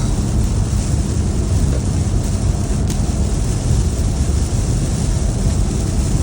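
Heavy rain pouring down with storm water rushing, a steady loud noise, with wind rumbling on the microphone.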